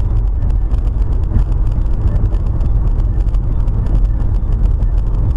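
Steady, loud low rumble of a moving vehicle: engine and road noise with no distinct impacts.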